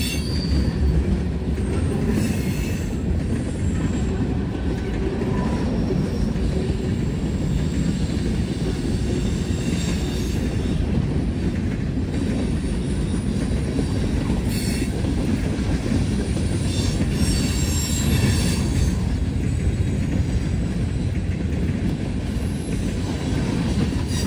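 Freight train cars rolling past: a steady rumble of steel wheels on rail, with brief higher wheel squeals now and then.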